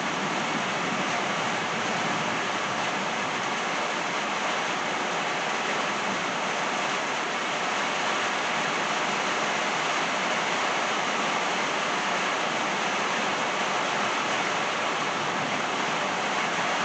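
Steady rain shower falling on trees and a wet driveway, an even unbroken hiss.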